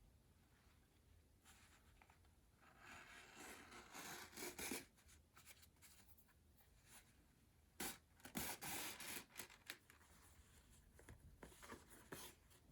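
Faint rubbing and rustling of a needle and thread being drawn through denim while hand-stitching a jeans hem. It comes in two short spells, about three seconds in and again about eight seconds in, with a few small clicks between them.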